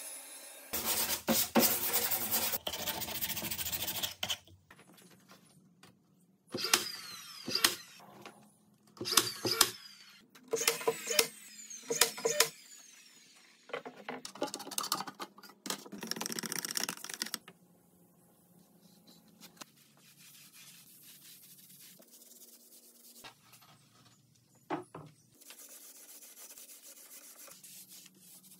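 Woodshop work sounds: a table saw rips a long board for about three and a half seconds, then a motor-driven tool runs in a series of short bursts, each speeding up and winding down. Near the end a paint roller rubs faintly along a board.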